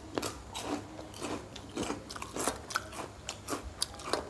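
Crunching and chewing of crisp fried papad close to the microphone: a string of sharp, crisp crunches, about three or four a second, irregularly spaced.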